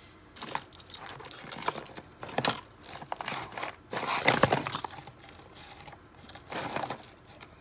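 A hand rummaging through a box of costume jewelry: metal bangles, chains and beads jangling and clinking against each other in repeated flurries. The loudest flurry comes about four seconds in.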